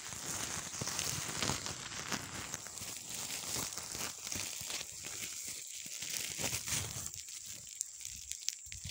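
Leafy rambutan branches rustling and crackling as they are handled, with many small snaps. The rustling thins out after about seven seconds.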